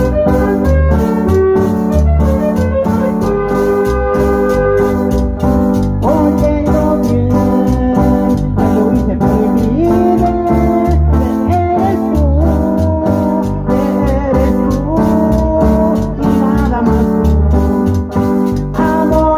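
Live band music: an electronic keyboard with an organ-like sound over bass and a steady beat, with a man singing into a microphone through the middle part.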